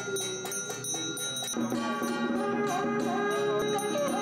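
Traditional Taoist ritual music. Rhythmic metallic bell-like strikes give way, about a second and a half in, to a wavering melody over them.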